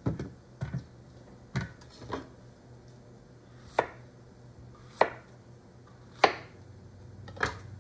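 Chef's knife slicing a zucchini into rounds on a plastic cutting board: about eight separate sharp chops, irregularly spaced roughly a second apart.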